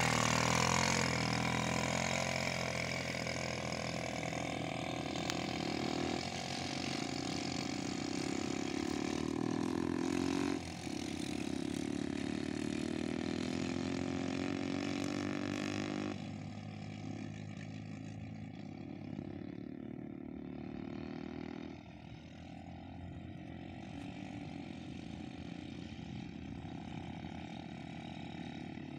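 Small quad bike's engine running as it rides off across sand: loud and close at first with its pitch falling, then fainter as it pulls away, stepping down in level about 16 and 22 seconds in.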